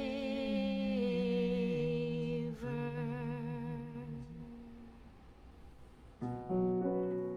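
A few voices singing a slow chant in harmony, holding long notes on "and savor" that step down and fade out about five seconds in. A new held chord comes in about a second later.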